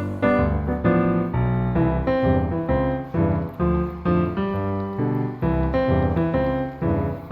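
Background music led by a piano, playing a melody over chords with notes struck in a regular rhythm.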